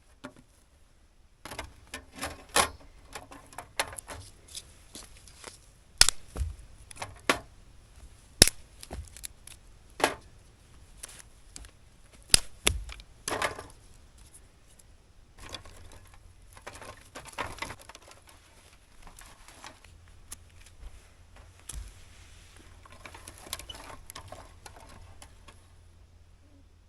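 Hands handling gear: irregular rustling broken by sharp clicks and knocks, the loudest a few single knocks spread through the middle.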